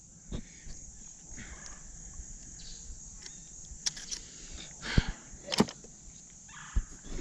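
Steady high-pitched insect drone, with scattered faint clicks and knocks from handling, a few of them louder about five seconds in.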